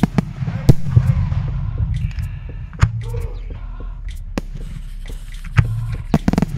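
Fireworks going off: a string of sharp bangs and crackles at irregular intervals, the loudest about a second in and again near the end.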